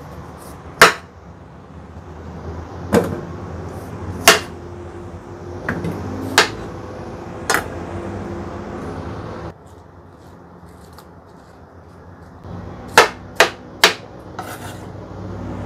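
Kitchen knife chopping through a peeled melon and knocking onto a plastic cutting board: single sharp knocks about a second in and several more through the middle, then three quick knocks near the end, over a steady low hum.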